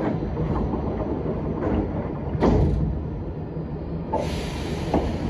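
Prague metro train's sliding doors closing, with a few knocks and one loud thump about two and a half seconds in as they shut, over the rumble of the standing train. A steady hiss starts near the end.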